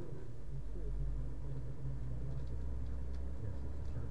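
Steady low rumble of a vehicle's engine and tyres on the road while driving, heard from inside the cab.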